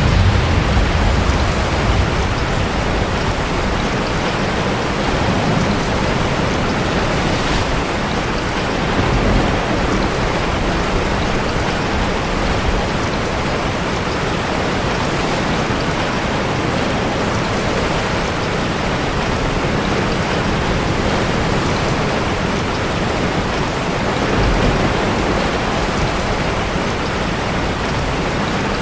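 Steady heavy rain mixed with breaking sea waves, a dense continuous hiss, with deep low rumbles near the start and again near the end.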